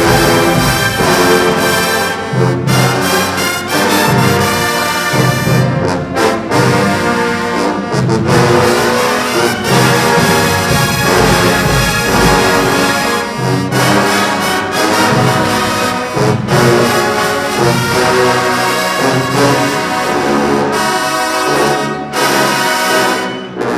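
Marching band brass section playing loudly, trombones and trumpets to the fore, over a bass line that repeats about every second and a half.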